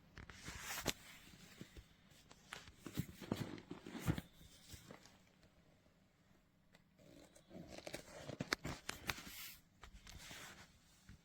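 Handling noises: irregular rustling and scraping with a few sharp clicks, in three bouts with quieter gaps between them.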